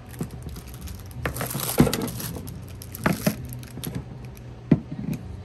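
Goods being handled at a shop checkout counter: a stretch of rustling about a second in, and several sharp knocks, the loudest near two seconds and near the end.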